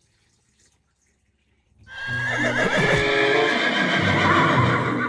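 A horse whinnying, one long wavering neigh starting about two seconds in, after near silence.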